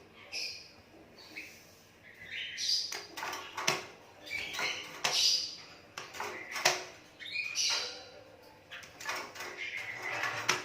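Asian pied starling (jalak suren) calling: a run of harsh, chattering calls mixed with short whistled notes and clicks, growing busier about two seconds in.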